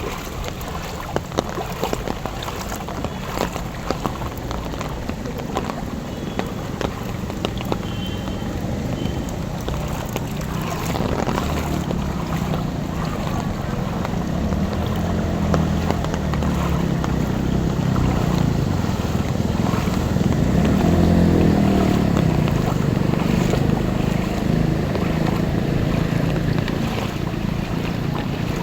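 Vehicle engine running through floodwater, with water sloshing and wind on the microphone. The engine grows louder through the middle, and its pitch wavers about two-thirds of the way through.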